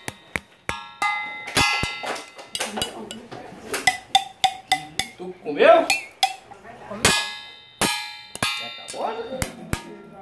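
Wooden skewer tapping a metal cup. The taps are quick and irregular, and many give a short metallic ring. A brief voice comes about halfway through.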